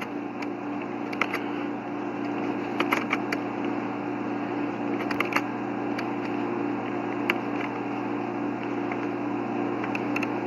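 Scattered light clicks of a laptop being worked, a dozen or so at uneven intervals, over a steady low hum.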